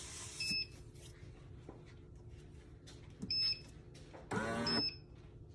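Café Affetto automatic espresso machine's control panel beeping three times as its buttons are pressed, short electronic beeps. A little over four seconds in, a brief louder whirring burst comes from the machine.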